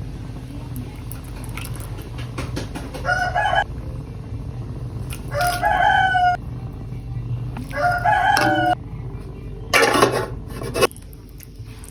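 A rooster crowing three times, each call short and pitched with a break in it. About ten seconds in there is a brief noisy clatter.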